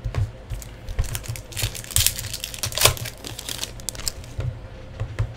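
2016 Topps WWE Undisputed trading cards being handled and flicked through by hand: a quick run of sharp clicks and rustles of card on card, busiest around two to three seconds in.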